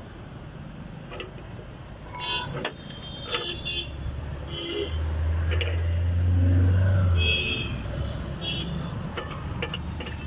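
Street traffic: a motor vehicle's low engine rumble swells to its loudest about halfway through, then fades. Scattered clicks and knocks run through it.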